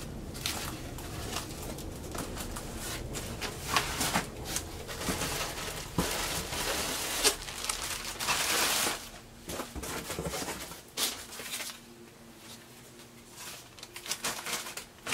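Cardboard packaging and plastic bags being handled and rustled while toys are taken out of a box, with small clicks and knocks from plastic toy parts. A longer stretch of dense crinkling comes about eight seconds in, and the handling grows quieter near the end.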